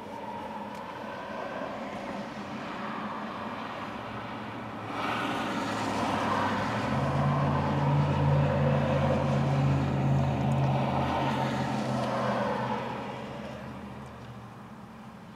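Highway traffic passing close by: tyre and road noise swells as several vehicles go past. It is loudest through the middle, with a low steady engine hum from a larger vehicle, and fades near the end.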